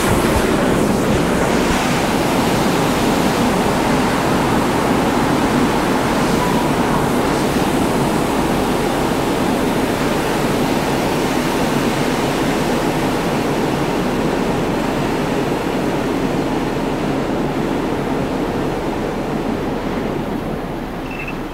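Shelled corn pouring in a heavy stream from the opened gate of an overhead holding bin into a semi truck's grain trailer: a loud, steady rush that starts abruptly as the gate opens and eases slightly near the end.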